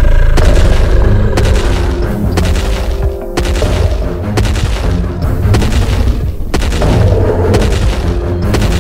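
Action film soundtrack: repeated loud booming impacts over dramatic music.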